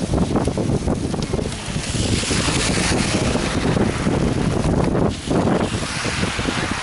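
Wind buffeting the microphone of a camera riding along on a moving bicycle: a loud, continuous low rumble. A hiss swells in the middle and fades again.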